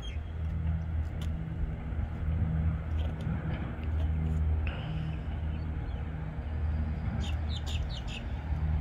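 A steady low engine hum that swells and eases, with a few short high chirps or clicks near the end.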